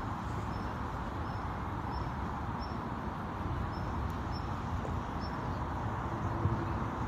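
Outdoor park ambience: a steady low background rumble with a small high chirp repeating about twice a second, thinning out after about five seconds.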